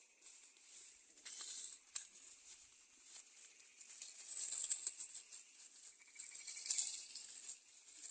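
Intermittent dry rustling and scratching, like leaves and brush being handled, in several short spells, with a faint high steady tone that comes and goes.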